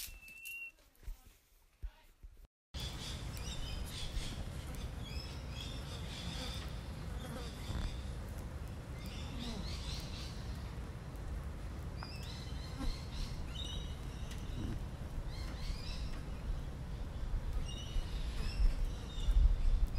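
Field ambience of dry bushland: insects buzzing and birds giving short high chirps every few seconds, over a low rumble of wind. It starts abruptly a few seconds in after a near-silent stretch.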